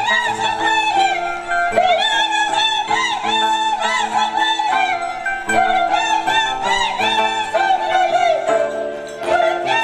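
Andean chimaycha music played live on harp and violin: a high, wavering melody over steady low harp notes, with a brief dip in loudness near the end.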